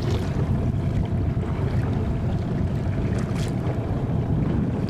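Wind buffeting the microphone over open water, a steady low rumble with water lapping, and a brief splash about three and a half seconds in.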